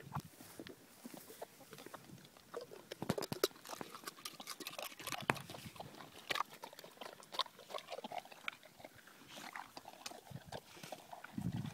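A St Bernard dog eating eggs: irregular chewing and lip-smacking with sharp mouth clicks, a few of them louder, and a short low sound near the end.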